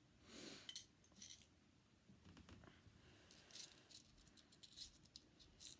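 Faint handling of small packaged items on a desk: a short rustle at the start, then scattered light clicks and ticks.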